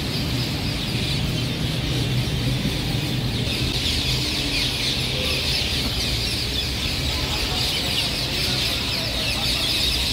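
A dense chorus of many birds calling and chattering at once, unbroken throughout, over a steady low rumble of city traffic.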